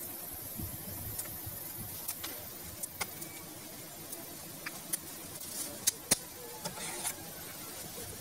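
Irregular sharp clicks and scrapes of a knife digging at the soil inside a hole in an earth bank, over a steady low background rumble.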